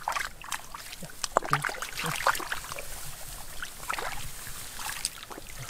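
Hands groping and splashing in shallow muddy water, with irregular small splashes and squelches while feeling for fish in the mud.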